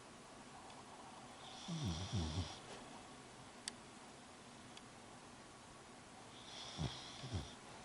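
Small Shih-poo dog snoring in its sleep: two snores about five seconds apart, each a pair of short, low rattling breaths with a high hiss above them. A single sharp click falls between the snores.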